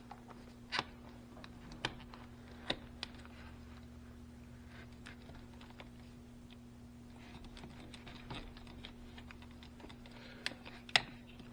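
Knife blade working through thick battery-cable insulation: scattered small clicks and taps, with a sharper click near the end, over a steady low hum. The insulation is hard and the blade dull, so the cutting goes slowly.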